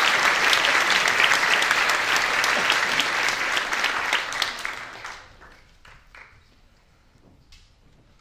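Audience applauding in a hall. The applause dies away about five seconds in, leaving only a few faint knocks.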